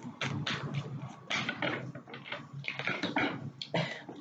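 A deck of oracle cards being shuffled by hand, a quick, irregular run of papery flicks and taps, with a card laid down on the wooden table near the end.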